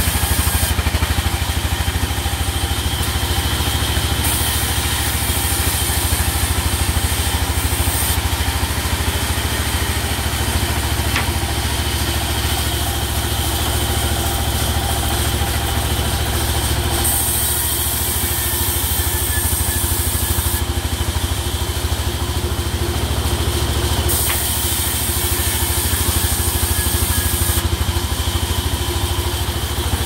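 Sawmill engine running steadily, driving a belt-driven circular saw, with a fast, even low rumble. A high hiss comes and goes in stretches of a few seconds.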